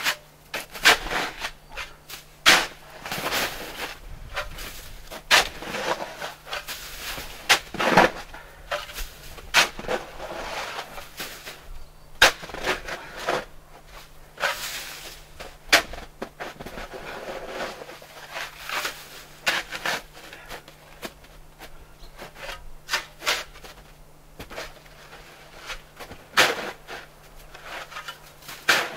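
Snow shovel digging into deep snow: repeated, irregular crunching scrapes as the blade is driven in and shovelfuls of snow are thrown aside. A faint steady low hum runs underneath.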